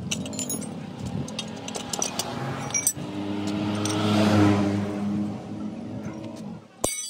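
A motor vehicle engine running close by, growing louder to a peak about four seconds in and then fading, as if driving past. Light metallic clinks of spanners on the gearbox parts sound throughout, with a sharp clatter of metal just before the end.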